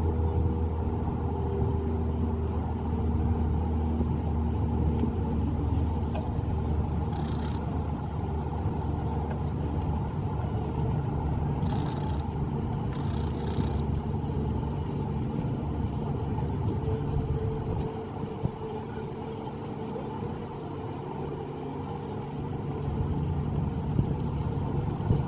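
Small ride boat's motor running with a steady low hum as the boat moves through the water, easing off about two-thirds of the way through.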